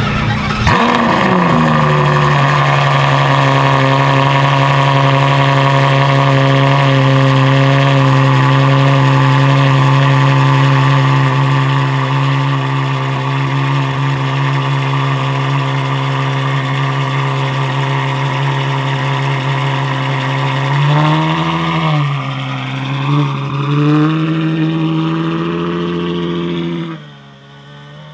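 Ferrari F12 Novitec N-Largo S's V12 engine firing up cold, flaring briefly and settling into a steady fast cold idle. About twenty seconds in it is blipped three times, then its sound falls away sharply near the end.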